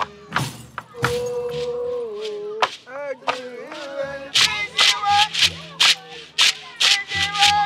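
Traditional Senufo music: a voice chants a long held note, then glides up and down, over the low plucked bass of large calabash bow harps. From about halfway through, a beaded gourd rattle shakes in a steady beat of about two to three strokes a second.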